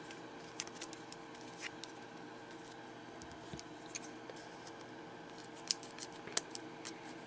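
Scissors cutting open a foil trading-card booster pack: a quick run of small sharp snips near the end, after a few light taps from handling the pack.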